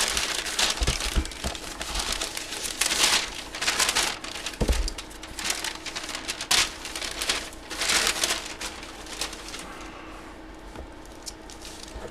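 Plastic wrapping and a bag crinkling and tearing in repeated bursts as a tightly wrapped package is pulled open by hand, with a dull thump about four and a half seconds in; the handling grows quieter near the end.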